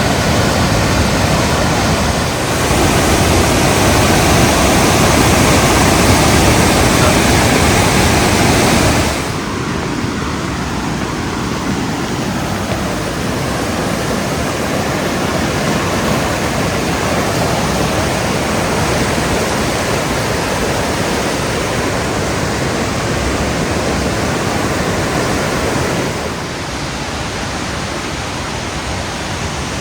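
Steady rushing roar of a waterfall pouring through a deep, narrow canyon. It is loudest for the first nine seconds, then a little softer, and drops again slightly near the end.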